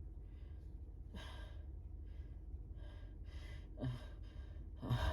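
A person's breathy in-breaths and short gasps between sneezes, the build-up to the next sneeze: a string of quick breaths, with a sharper voiced catch of breath about four seconds in and a louder one at the very end.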